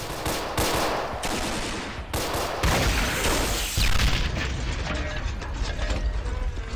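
War-film battle sound effects: rapid volleys of gunfire and machine-gun fire, with a louder, longer blast about halfway through.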